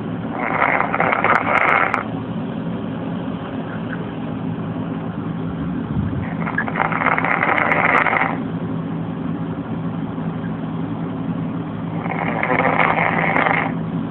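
A man snoring in his sleep: three snores about six seconds apart, each lasting one and a half to two seconds, over a steady low hum.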